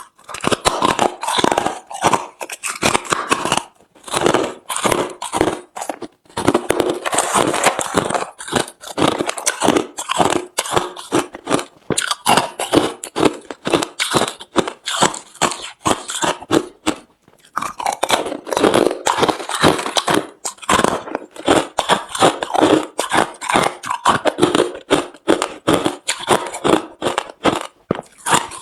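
Hard, refrozen crushed ice being bitten and chewed close to the microphone: a dense run of sharp, crunchy cracks, broken by a few short pauses between bites.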